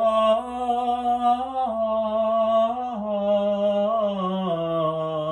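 A man's solo classical singing voice holding long sustained notes on an Italian aria, the pitch stepping up and down several times.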